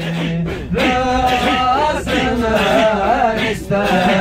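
Male voices singing a Turkish Sufi hymn (ilahi), the melody drawn out in long, ornamented vowel lines over a steady low held note.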